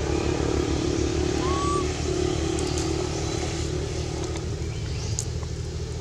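A motor vehicle's engine running steadily off screen, a low drone that eases a little about two thirds of the way through. A brief squeak comes about one and a half seconds in.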